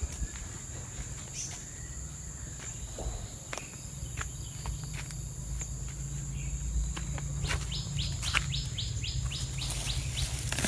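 Outdoor ambience: a steady high-pitched insect drone with a few scattered clicks, and a quick run of about ten rising chirps, about four a second, starting about seven and a half seconds in. A low rumble from the handheld camera moving runs underneath.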